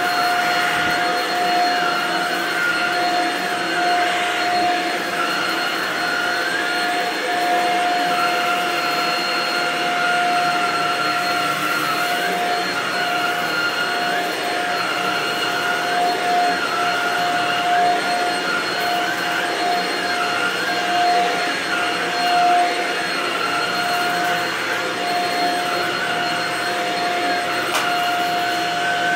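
Shark Rocket DuoClean vacuum running steadily as it is pushed over a shaggy rug: a constant motor whine, with a higher tone that wavers as the head moves.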